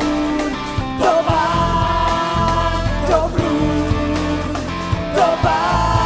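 Live contemporary worship music: a woman singing long held notes over electric guitar and a stage piano keyboard.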